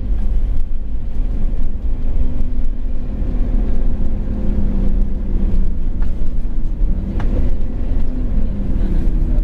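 Scania OmniCity N230UD double-deck bus's 9-litre five-cylinder diesel engine running as the bus drives along, heard from inside the passenger saloon as a steady low drone with road noise.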